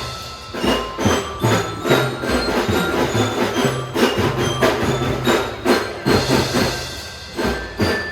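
Children's marching drum band playing: drums beating a steady pattern under a melody of ringing bell tones from mallet bells.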